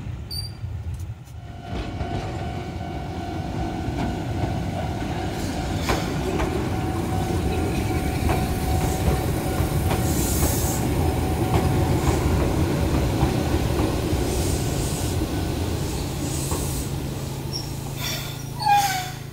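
Keihan 600 series two-car tram running close by on the rails: steady running noise with a faint whine and occasional clicks of wheels over rail joints. A short high squeal falling in pitch comes near the end.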